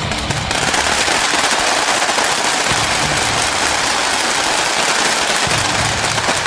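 A squad of rifles firing rapidly together, many shots overlapping into a dense, unbroken crackle that starts about half a second in.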